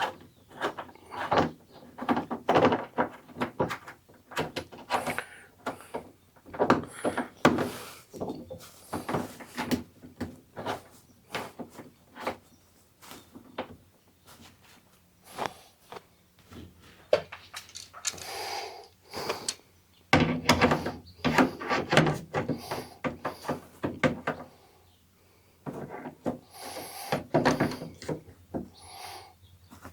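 Irregular clicks, taps and rattles of hands working the mounting nut onto a Cannon-style circular bulkhead wiring connector, tightening it down.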